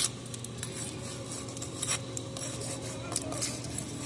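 Metal hand tools scraping through wet concrete, with a few sharp clinks, over a steady low engine hum.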